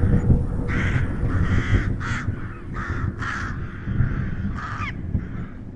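Crow cawing over and over, short harsh calls coming about every half second, over a steady low rumble.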